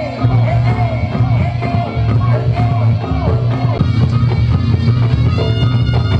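Loud reog accompaniment music: a wavering, bending high melody line over a steady, heavy low bass, playing without pause.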